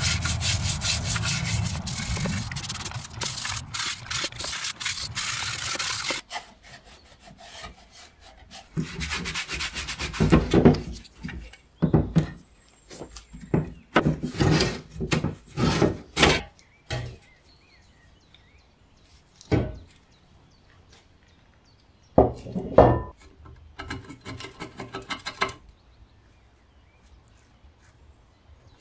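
A brush scrubbing a rusted kerosene-stove part in a tub of murky liquid: continuous wet scrubbing that stops about six seconds in. After that, a series of short scrapes and knocks as the rusty metal stove body is handled on a wooden bench.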